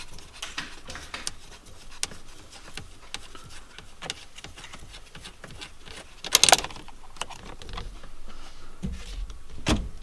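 Small metallic clicks and rattles of hands working the loosened nut and parts at a steering wheel hub, with a louder rattle about six and a half seconds in and a low thump near the end.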